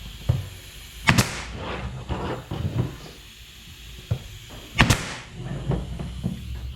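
Pneumatic 18-gauge brad nailer firing twice, about four seconds apart, driving 1-inch brads into a wooden beehive frame, with lighter knocks of the wood being handled in between.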